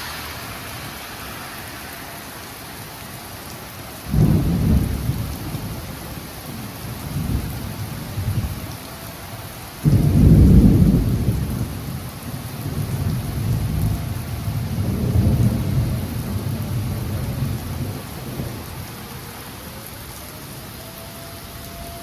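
Thunderstorm: steady rain with two sudden thunderclaps, one about four seconds in and a louder one about ten seconds in, each rolling into a deep rumble that dies away over several seconds.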